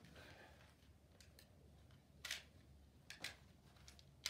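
Near silence, broken by two faint short clicks about two and three seconds in, from a prone shooter handling his rifle and gear.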